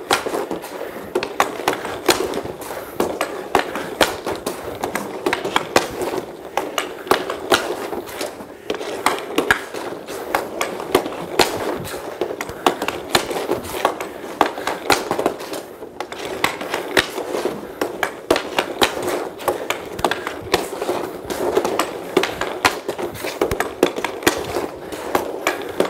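Ice skate blades scraping and carving on synthetic ice tiles during tight turns, with a hockey stick blade clicking against a puck in quick, irregular stickhandling.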